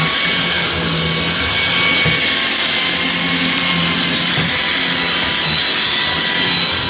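Shark DuoClean cordless stick vacuum running steadily: a high motor whine over a rush of air, with an uneven low rumble from the floor head as it is pushed over the floor.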